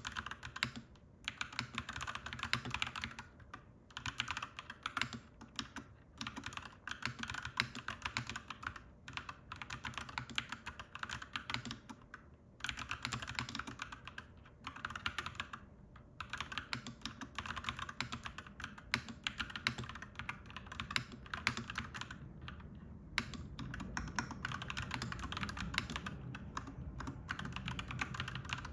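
Clacky mechanical keyboard being typed on in quick runs of keystrokes, with short pauses every few seconds. A low steady rumble rises in the background over the last few seconds.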